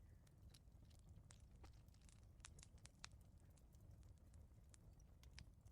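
Faint wood fire crackling in a fireplace: scattered small pops and snaps over a low steady rumble.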